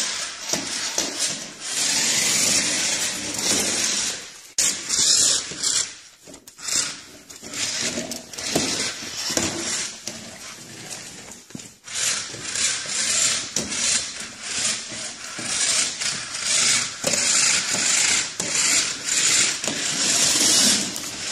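A toy remote-control car's small electric motor and plastic gears whirring and buzzing, stopping and starting several times, with clicks and clatter on a hardwood floor.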